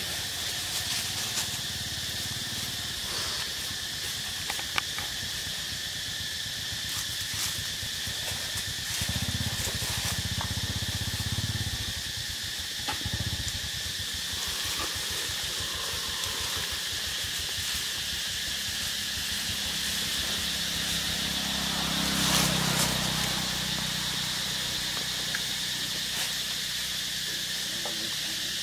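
Steady high insect drone of tropical forest, a constant even buzz, with a couple of low rumbles in the middle and near the end.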